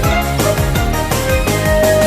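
Background music with a steady, fast beat and bright melodic notes, in the style of video game music.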